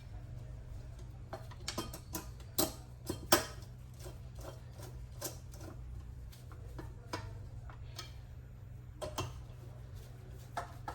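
Irregular light clicks and taps of a T10 Torx screwdriver and small parts being worked while tightening the drive belt on a key cutting machine, with a few louder knocks about three seconds in, over a steady low hum.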